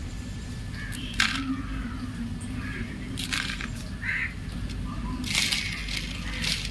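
Chalk crumbling and crunching as it is crushed, in a few separate crisp crunches a second or two apart, over a steady low background rumble.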